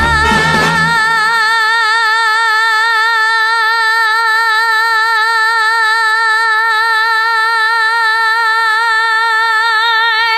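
A woman's show-tune singing voice holds one long note with a steady vibrato, the vocal showpiece of the note-holding contest in the duet. The band's accompaniment drops out about a second in, leaving the voice alone.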